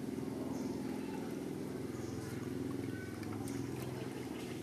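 An engine running steadily at idle, a low even hum, with a few faint small splashes of water.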